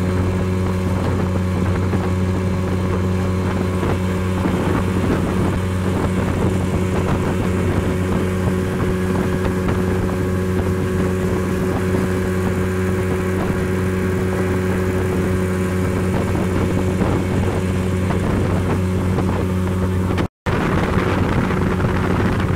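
A small motorboat's engine running steadily at cruising speed, a constant low hum, with wind buffeting the microphone. Near the end the sound cuts out for a moment, and after that the engine is lower and wind and water hiss come up more.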